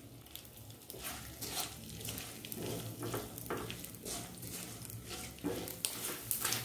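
Gond (edible gum) crystals frying in hot ghee in a non-stick kadhai, sizzling with frequent small crackles as they puff up, while a silicone spatula stirs and scrapes through them; it grows louder after about the first second as the stirring starts.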